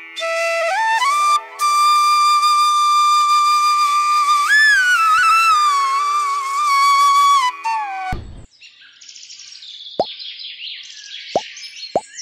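Background music: a sustained whistle- or flute-like melody that slides up at the start and wavers, for about eight seconds. It stops abruptly and gives way to high chirping, with a few short rising blips near the end.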